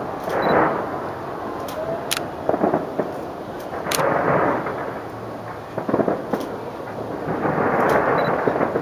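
New Year fireworks display heard from a distance: overlapping booms blur into a continuous rolling rumble that swells every second or two. Several sharp cracks sound over the top.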